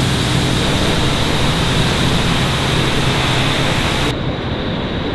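Loud steady rushing noise with no distinct tone. The high hiss drops away abruptly about four seconds in, leaving a duller rush.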